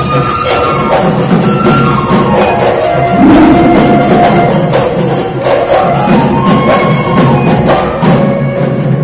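Loud folk dance music from a loudspeaker: a fast, steady jingling percussion beat under a moving instrumental melody.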